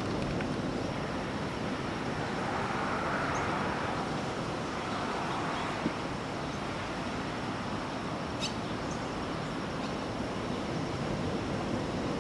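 Ocean surf washing steadily onto a beach, one wave swelling and fading a few seconds in. A brief high bird call about eight and a half seconds in.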